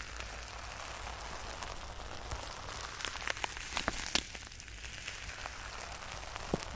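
Fingers working close over the microphones, a soft ASMR trigger: a steady, rain-like crackling hiss with scattered sharp clicks, a few more of them together a little past the middle.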